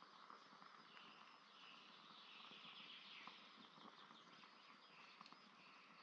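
Faint crackling of a small stick campfire, a few light ticks and pops over a soft hiss, with faint bird chirps in the background about a second in.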